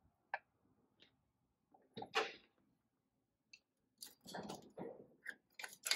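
Light metal clicks and scrapes of a pry bar and other hand tools working at a diesel cylinder head while the injector nozzles are pried out: a few scattered clicks, a brief scrape about two seconds in, then a quick cluster of clicks and scrapes near the end.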